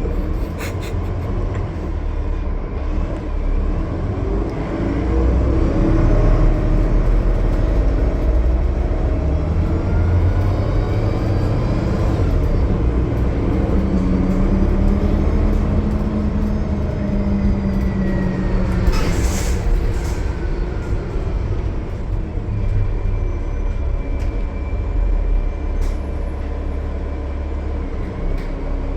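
Bus's Cummins ISL9 diesel engine running under way, with a steady low rumble and engine and turbo whines that slowly rise and fall. A short hiss of air about two-thirds of the way through.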